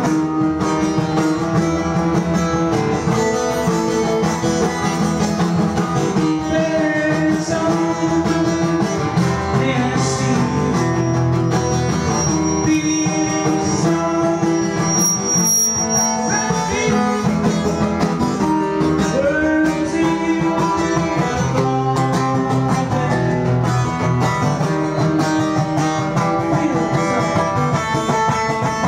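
A guitar played live, a song carried on one guitar at a steady loudness.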